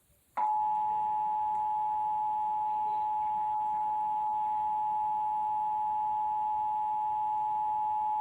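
Emergency Alert System attention signal: the two-tone EAS alert (853 Hz and 960 Hz sounded together), steady for about eight seconds, starting just under half a second in. It marks the start of an EAS Required Monthly Test.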